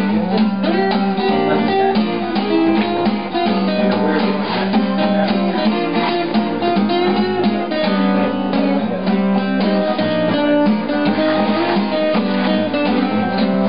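Two acoustic guitars played together, a steady run of quick plucked and strummed notes.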